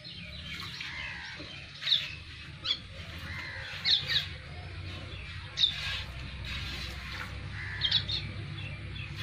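Birds chirping in short, scattered calls, several sharp chirps a second or two apart, over a steady low background hum.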